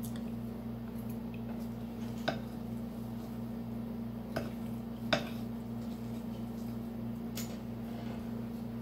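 Metal fork clinking against a dish of cheesy eggs while eating: three sharp clinks about two, four and five seconds in, over a steady low hum in the room.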